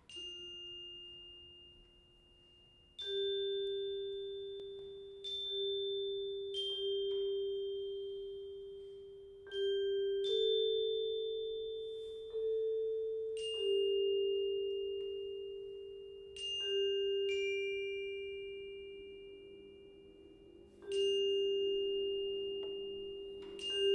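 Sparse single notes struck on tuned mallet percussion, each ringing out and fading over two or three seconds, about one every two to three seconds with a few pairs close together. Faint lower sustained tones come in near the end.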